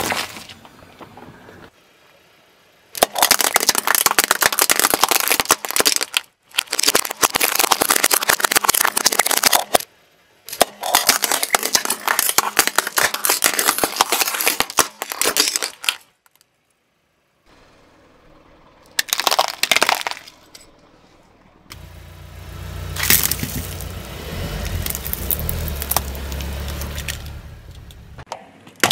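Car tyre rolling over and crushing objects one after another: repeated stretches of cracking and crunching, with short gaps between them. Near the end a low rumble runs under a longer crunch.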